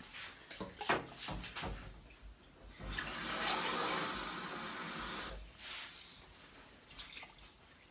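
Kitchen tap running for about two and a half seconds with a faint high whistle, then turned off. A few light knocks and clatter come before it.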